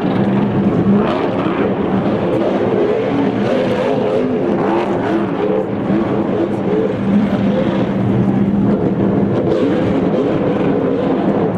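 NASCAR Sprint Cup stock car's V8 engine revving hard during a burnout, spinning donuts with the rear tyres smoking; the engine note rises and falls continuously as the driver works the throttle.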